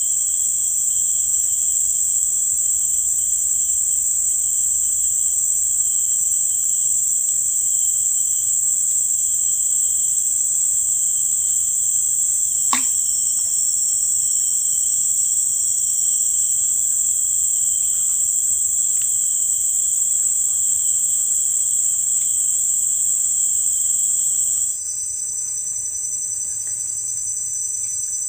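Loud, unbroken high-pitched drone of insects, such as cicadas or crickets, in the riverside vegetation. It shifts suddenly to a slightly lower, quieter pitch near the end, and there is a single sharp click about halfway through.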